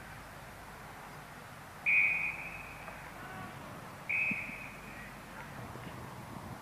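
Two short, shrill umpire's whistle blasts about two seconds apart, each starting sharply and tailing off quickly.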